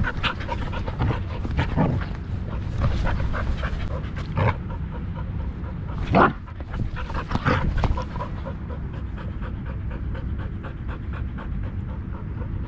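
A dog panting steadily, heard close up, with a few louder rustles and bumps scattered through.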